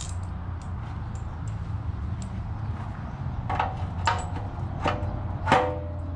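Metal hardware knocking and clinking against an aluminium frame body as pegs are fitted and bolted in: a few light clicks, then several sharp clanks that ring briefly, over a steady low hum.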